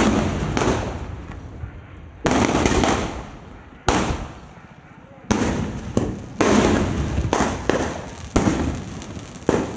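Aerial firework shells bursting overhead: a loud bang right at the start, then more about two and four seconds in, coming faster in the second half. About a dozen bangs in all, each dying away over a second or so.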